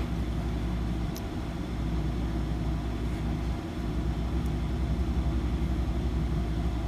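Steady low background hum, with a faint click about a second in and another near the middle.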